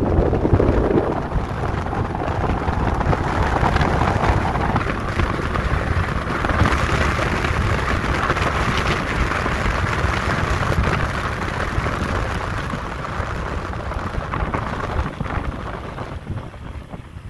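Wind buffeting the microphone, with road noise, on an electric motorcycle accelerating hard at speed to about 70 km/h. The rush turns brighter from about six seconds in and dies down over the last few seconds.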